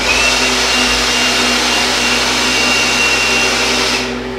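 Small handheld leaf blower running at full speed with a steady high whine, blowing sheetrock dust off freshly finished walls. It starts at once and winds down about four seconds in.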